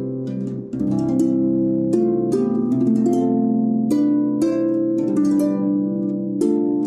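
Background music: plucked string notes, harp-like, a new note about every half second over held low tones.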